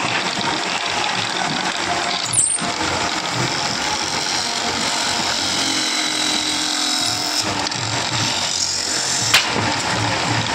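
Small belt-driven wood lathe running while a hand chisel cuts into a spinning wooden disc, a steady scraping hiss of the cut over the machine's rumble. Two short sharp clicks, about two seconds in and near the end.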